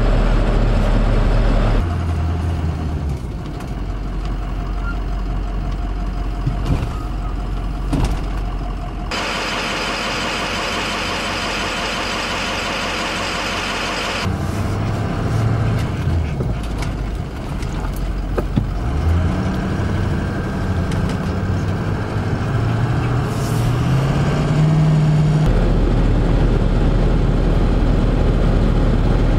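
Truck driving on the road: engine running with steady road noise. A louder rushing road noise lasts about five seconds from about nine seconds in, and in the last third the engine's pitch rises in several steps.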